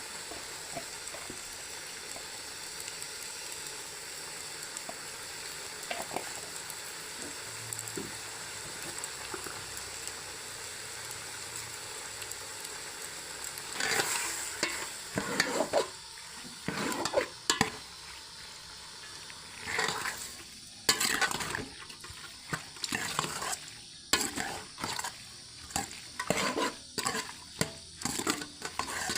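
Food sizzling steadily in a pan; about halfway through, a spoon starts stirring and scraping against the pan in loud, quick, irregular strokes.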